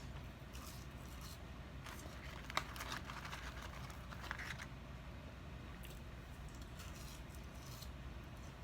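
Faint eating sounds: a person picking up and chewing french fries, with light crinkling of the paper packaging and scattered small clicks, the sharpest about two and a half seconds in.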